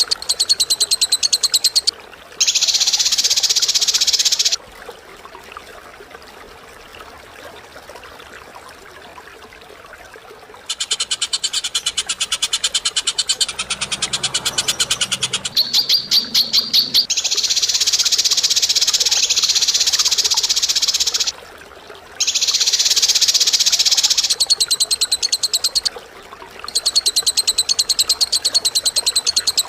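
Harsh, rapid rattling bird trills, high-pitched, coming in loud bursts of a few seconds each with short pauses between and one longer quieter stretch of about five seconds early on.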